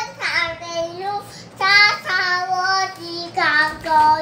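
A toddler singing a children's song in a high voice, with several long held notes.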